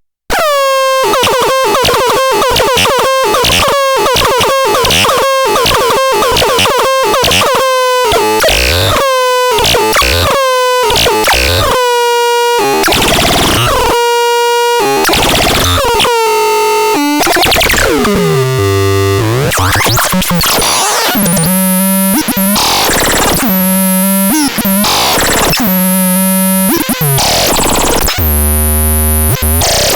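Electronic synthesizer playing test patches: for the first eight seconds, about two notes a second, each dropping quickly in pitch as it starts. Then slower notes, a deep pitch swoop down and back up near the middle, and buzzy sustained tones pulsing rhythmically toward the end.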